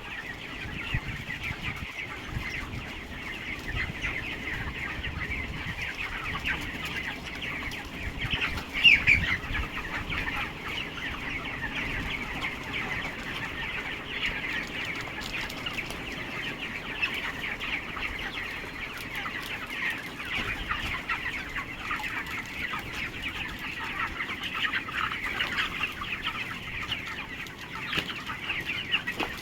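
A large flock of 27-day-old chickens calling continuously, a dense mass of high peeping and clucking. One louder call stands out about nine seconds in.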